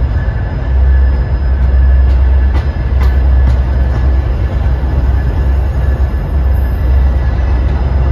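Metra bilevel gallery passenger cars rolling slowly past on a departing train, a deep steady rumble with a thin steady whine above it. A few sharp clicks from the wheels over rail joints come about two and a half to three and a half seconds in.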